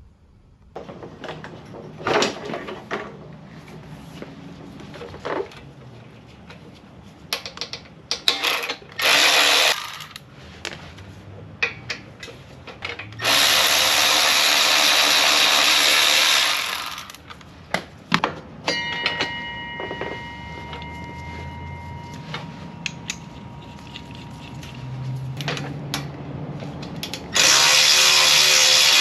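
Cordless power tool running in three bursts, the longest about three seconds, while fasteners come off the motorcycle's front end, with scattered clanks and knocks of metal parts being handled between the bursts.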